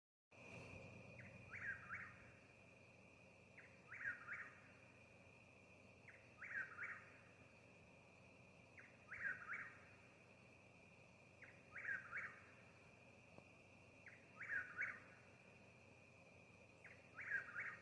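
A nightjar singing its three-part night call seven times, about once every two and a half seconds, each call opening with a faint short note. A steady high hum runs underneath.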